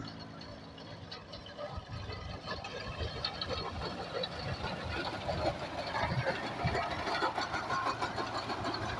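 New Holland Ghazi tractor's diesel engine running while its front-mounted reaper cuts standing wheat, with a busy mechanical clatter over the engine hum. It grows louder as the tractor comes closer.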